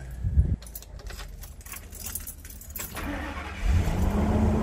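Keys jangling in the ignition of a 2000 Gulf Stream motorhome, then its Ford Triton V10 gas engine cranking and catching just before the end. On starting it flares up briefly in pitch, then settles toward idle.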